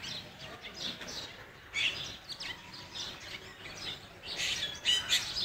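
Birds chirping, with a few calls about two seconds in and a busier run of chirps near the end.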